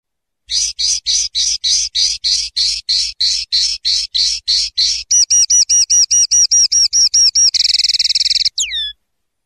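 Common linnet singing one long song phrase: a run of rough repeated notes at about five a second, then a faster series of clear whistled notes, a rapid trill, and a final falling whistle.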